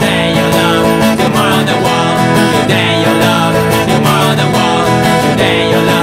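Acoustic guitar strummed steadily in an acoustic punk song.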